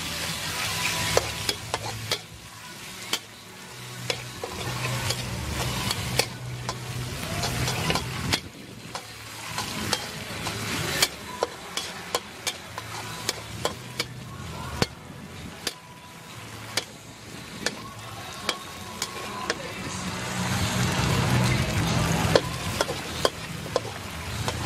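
Pork slices sizzling in a steel wok as a metal ladle stirs and scrapes them, with frequent sharp clinks of the ladle against the wok over a low hum.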